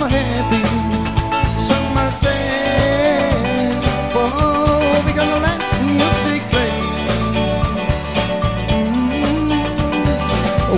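Live band playing: electric guitars, bass, drums and keyboard, with a lead melody line that bends and slides in pitch over a steady beat.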